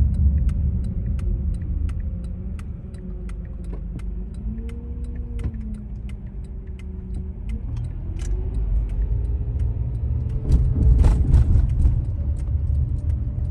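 Railroad crossing warning bell ringing in quick, even strikes, about three a second, over a steady low vehicle rumble. A few faint squeals rise and fall, and the rumble grows louder about eleven seconds in.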